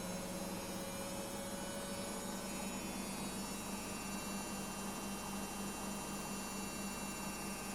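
A kitchen appliance's steady electrical hum, low-pitched and unchanging.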